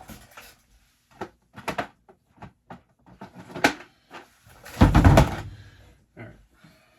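Rummaging for supplies in workshop storage: scattered light knocks and clicks, with one heavy thump about five seconds in.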